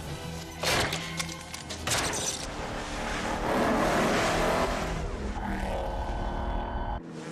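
Action-film soundtrack mix: two sharp crashes in the first two seconds, then a car engine revving as it sprays ice across a frozen lake, over background score music, with a sudden cut just before the end.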